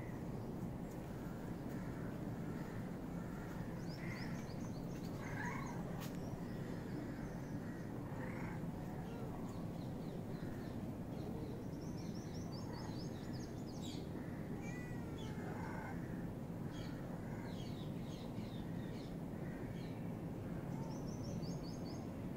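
Outdoor ambience: a steady low background rumble with birds calling over it. A short, high, descending run of chirps repeats three times, with a few brief lower calls scattered between.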